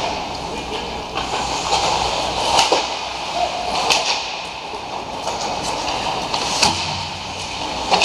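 Ice skates scraping and carving on the rink ice during a hockey game, with several sharp cracks of sticks and puck; the loudest crack comes about two-thirds of the way through.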